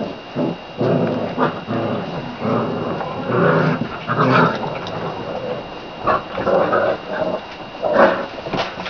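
SpringerLander puppies whining and crying over and over in short pitched calls.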